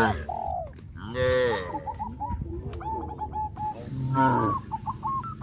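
Cattle mooing in several separate calls: one at the very start, one about a second in, and one about four seconds in. Between the calls, a bird gives a quick string of short repeated notes.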